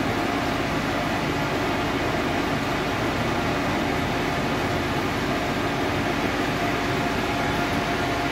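Steady mechanical hum and hiss with a few faint steady tones running under it, even in level throughout.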